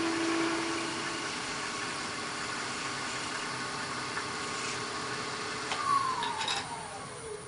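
Wood lathe running with a steady hum while a scraper lightly cuts an ebony knob. About six seconds in come a few clicks, then the motor's whine falls in pitch as the lathe spins down.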